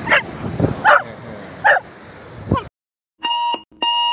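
A few short, high-pitched calls over outdoor wind noise. About two and a half seconds in the sound cuts off suddenly, and two short electronic beeps of a video countdown follow.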